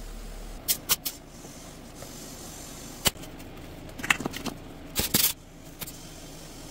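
Short hisses of compressed air from an air chuck pressed onto a lawn tractor tire's valve stem, inflating the tire in quick bursts, about seven over the few seconds, one with a sharp click.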